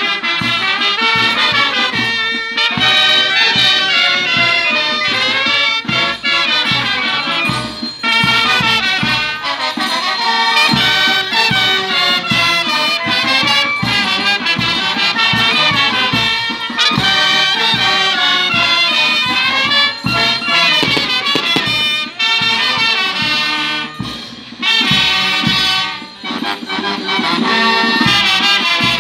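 Brass band playing a lively Negritos dance tune, with trumpets and other brass carrying the melody.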